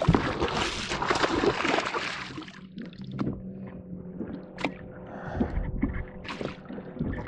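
A small hooked musky thrashing and splashing hard at the surface beside the boat for about two and a half seconds, then water lapping with a few smaller splashes over a faint steady hum.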